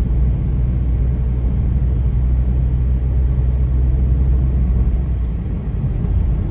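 Steady low rumble of an ordinary sedan driving over a rough, bumpy road, heard from inside the car; it eases slightly about five seconds in.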